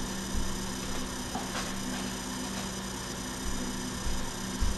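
Steady electrical mains hum, with a few dull low thumps, the strongest near the end.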